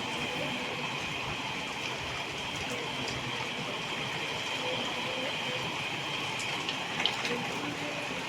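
Steady rain falling, an even hiss throughout, with one sharp tick about seven seconds in.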